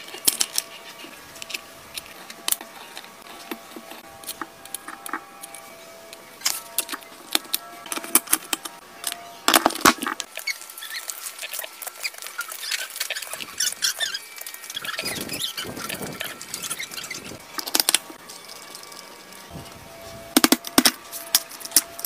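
Metal engine parts clicking and clinking as a motorcycle clutch is put back together by hand: gears and clutch plates slid onto their shafts in the open crankcase. Irregular sharp clicks, with louder clatters about ten seconds in and again near the end.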